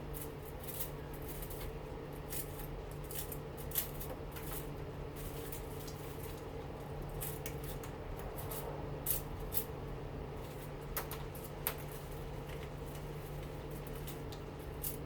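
Faint, scattered clicks and snips of hand tools working on the copper windings of a washing machine motor, with a few sharper ticks, over a steady low hum.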